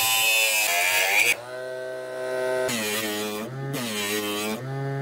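Small homemade bench saw, a DC motor spinning a thin cutting disc, cutting PVC pipe. There is a high whine with a hissing grind while the disc is in the cut. The pitch sinks as the motor is loaded and climbs back when the disc spins free, once in the first second and again from about three to four and a half seconds in.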